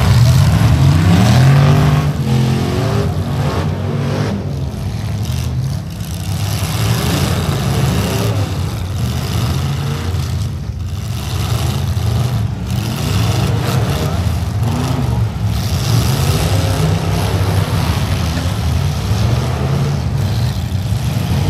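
Several demolition derby trucks' engines running and revving hard, a loud low rumble whose pitch climbs and falls again and again, loudest in the first two seconds.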